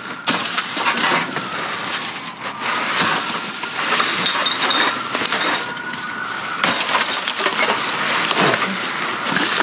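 Trash being rummaged through in a dumpster: continuous crunching and rustling of bags, paper and cardboard, with scattered clinks and knocks of cans and other objects being shifted.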